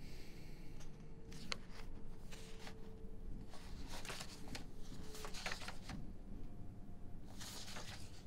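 Paper pages of a document being turned one after another, several short rustles a second or two apart over a faint steady hum.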